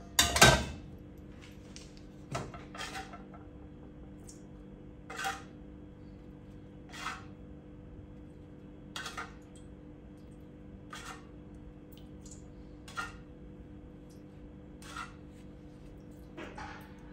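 Stainless steel wok set down on the gas stove's cast-iron grate with one loud metallic clank. After it come light clinks of cookware about every two seconds.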